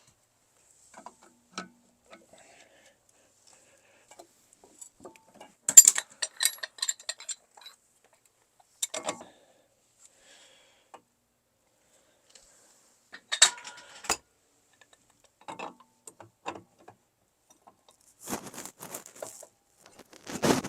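Intermittent metallic clinks and clatters of tools and pipe fittings being handled during plumbing work on a jet pump, in irregular clusters, the loudest a little before six seconds in.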